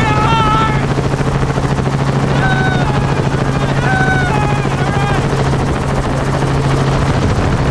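Helicopter rotor chop and engine hum heard close up from the skid while airborne, a rapid steady chopping over a constant low drone. Over it, a man straining through pull-ups hanging from the skid lets out several short high-pitched yells of effort.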